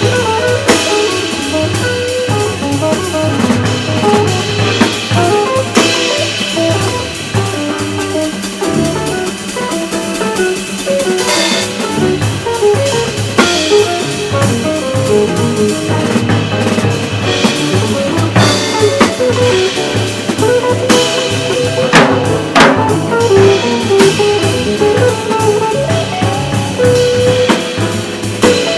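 Live jazz quartet playing: archtop electric guitar, piano, upright bass and drum kit, with the drums prominent.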